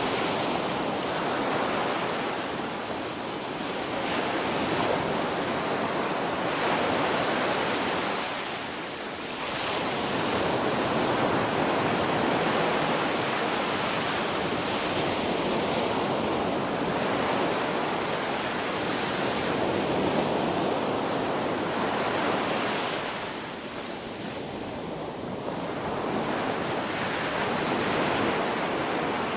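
Ocean waves breaking on a beach in a continuous wash of surf, ebbing briefly about 9 s and 24 s in before the next wave builds and crashes.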